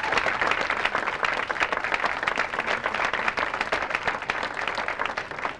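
Audience applause: many people clapping together in a dense, steady patter.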